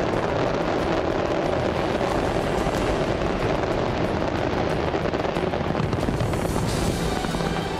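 A dense barrage of fireworks going off: a continuous rumble of shell bursts with fast crackling over it, mixed with music.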